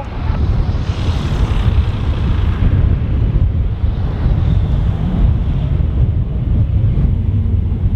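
Embraer Legacy 500 business jet's twin turbofan engines running on the takeoff roll: a steady rushing rumble, with heavy wind buffeting on the microphone.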